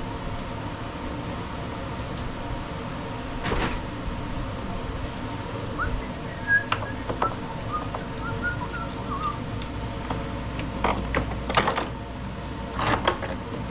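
Scattered sharp metal clicks and taps as needle-nose pliers work the drive cable end and its spring into place on a self-propelled push mower, over a steady background hum.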